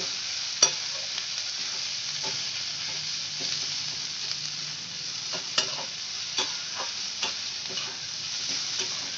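Sliced onions sizzling in hot oil in a kadhai while a metal spatula stirs and scrapes them, with sharp clicks of the spatula on the pan now and then. The onions are just starting to turn reddish.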